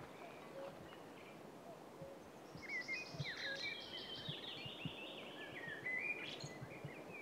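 A songbird sings one fast phrase of many quick, sweeping, mostly falling notes, starting a couple of seconds in and lasting about four seconds, over a faint steady background hiss.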